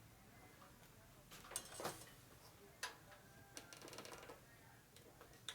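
Faint, scattered clicks and light metallic rattles from small battery charger clamps being handled and clipped onto the battery, with a short quick run of ticks near the middle.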